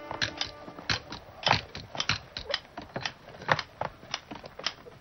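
Stonemasons' hammers and chisels striking stone: a clatter of sharp, irregular knocks, several a second, from more than one worker.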